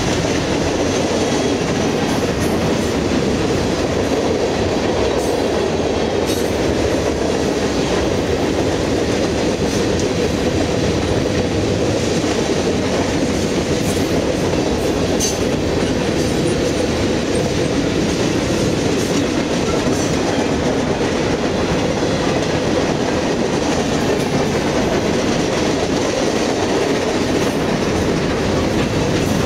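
Freight train of covered hoppers and tank cars rolling past steadily, its steel wheels clattering over the rails.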